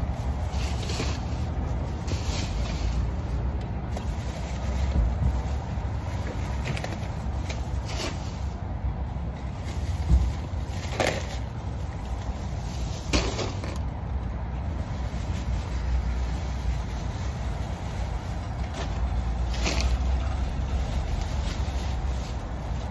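Plastic grocery bags rustling and crinkling as they are lifted and set down in a car's cargo area, with several sharp crackles of the bags, over a steady low outdoor rumble.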